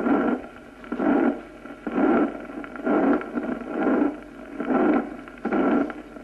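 Recorded heart sounds with the decrescendo diastolic murmur of pulmonary valve regurgitation (pulmonary insufficiency). A rushing noise comes with each heartbeat, about once a second, and each one starts strong and fades away.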